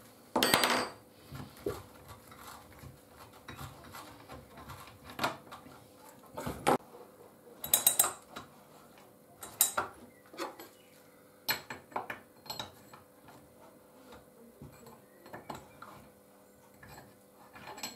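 Scattered metallic clinks and knocks from hand tools: the chainsaw's combination spark plug spanner and the removed spark plug being handled and set down on a wooden workbench.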